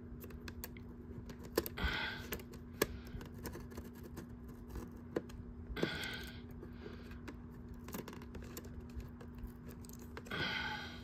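A plastic VHS tape case being handled and opened: scattered light clicks and taps, with three brief scraping sounds about two, six and ten seconds in.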